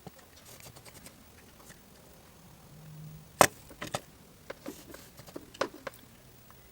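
Scattered small clicks and taps of soldering tools and parts being handled at a workbench during solder touch-up on a circuit board, with one sharp click about three and a half seconds in.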